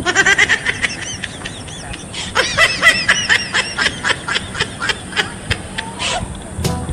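High-pitched giggling from young women, in quick repeated 'ha-ha' pulses: one burst in the first second and a longer, louder one from about two and a half seconds in, then scattered short giggles.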